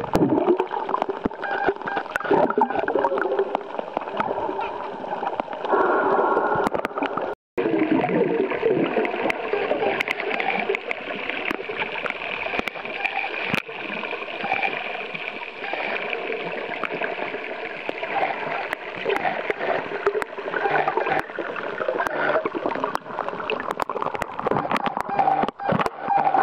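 Underwater sound of a spinner dolphin pod: many sharp clicks and wavering whistle-like tones over a steady wash of water noise. The sound cuts out briefly about seven seconds in.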